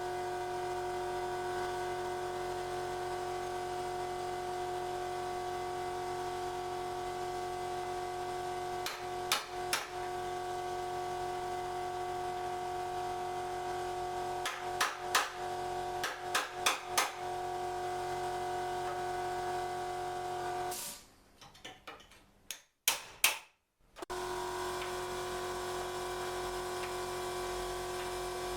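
Electric angle grinder running with a steady whine, with a few sharp knocks about nine seconds in and again around fifteen to seventeen seconds. The whine cuts off suddenly, a couple of loud knocks follow, and it starts again a few seconds later.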